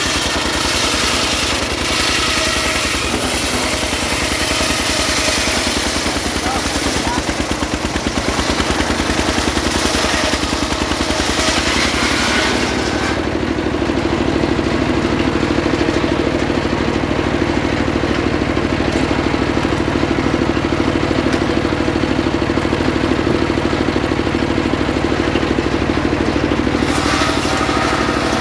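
A stationary engine runs steadily, driving a homemade circular saw. For the first half the blade rips lengthwise through a trembesi (rain tree) log, a loud high hiss over the engine. About thirteen seconds in the cut ends and only the engine and the freely spinning blade are heard, with the hiss briefly back near the end.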